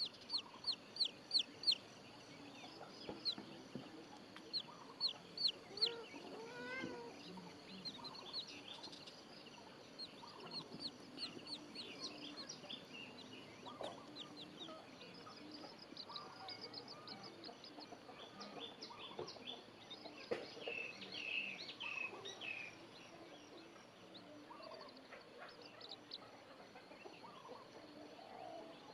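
Baby chicks peeping: short, high, falling peeps in quick runs, loudest in the first couple of seconds and continuing on and off. About six seconds in comes one lower, wavering call.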